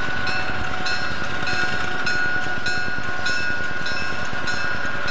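Southern Pacific 3100, a GE U25B diesel-electric locomotive, running as it rolls slowly by, its bell ringing steadily just under twice a second over the engine's rumble and a steady high tone.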